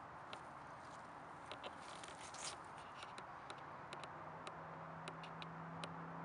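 Footsteps on dry grass and fallen leaves: a run of light crackles and sharp ticks over a faint steady hiss. A low steady hum comes in about four seconds in.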